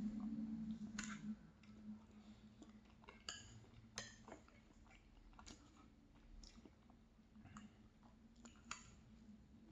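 Quiet chewing of a mouthful of ice cream and crumbled almond raspberry tart, with scattered soft clicks and a low hum for the first second or so.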